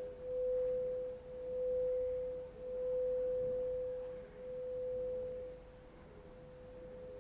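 A single pure, sustained tone of a sound-bath instrument near 500 Hz. It pulses, swelling and dipping about every second and a half, then settles to a softer, even tone near the end.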